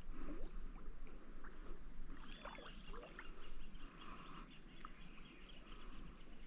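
Water splashing and sloshing around someone wading in a river. A bird whistles a short arched call about two and a half seconds in.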